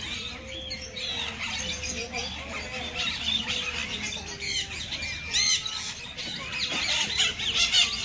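A flock of parrots in an aviary squawking and chirping, many short high calls overlapping one another throughout.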